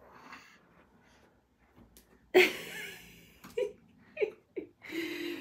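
Newborn baby's breathy noises: a sudden loud huff about two seconds in, then a few short high grunts and a brief held vocal sound near the end.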